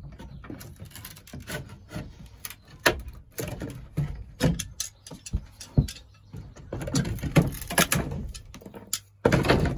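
Irregular knocks, clicks and rattles of plumbing pipe and fittings being handled and offered up against a wall, with rustling in between.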